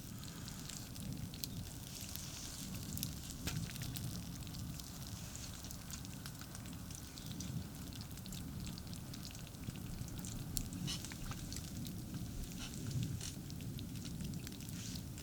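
Campfire crackling, with scattered sharp pops and a light sizzle, over a steady low rumble of distant highway traffic.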